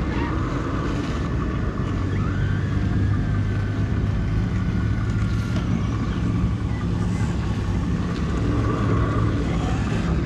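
Radio-controlled scale crawler trucks running as they climb a steep dirt slope: a steady low drone with faint higher whines, loudest in the middle.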